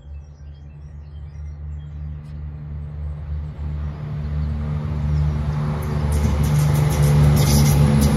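A diesel multiple-unit train approaches and passes, its engine drone growing steadily louder, with wheels clattering over the rails in the last couple of seconds. Birds chirp at first.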